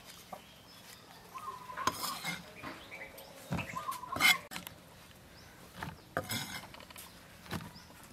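A cleaver knocking and scraping on a wooden chopping block as sliced mushrooms are gathered up, a few sharp knocks with short scrapes between them.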